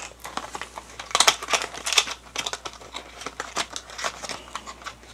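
Small cardboard retail box being opened by hand: a run of irregular crinkles, rustles and small clicks from the packaging, busiest a second or two in.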